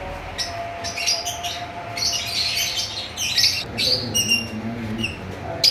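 Blue Fischer's lovebirds in a wire cage chirping and squawking in a run of short, shrill calls, with one sharp click near the end.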